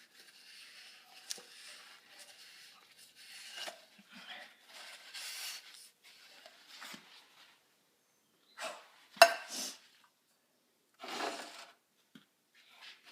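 Intermittent rubbing and scraping handling noises, with a sharp clatter about nine seconds in.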